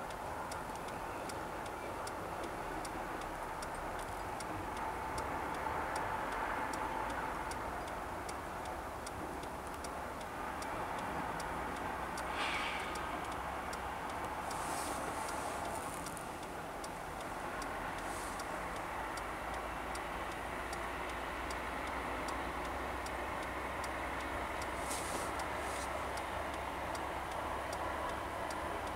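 Steady rush of a shallow river running over stones, with a faint, regular ticking throughout.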